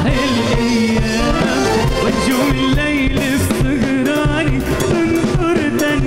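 Live Arabic pop song: a male singer with a band, drums in the accompaniment.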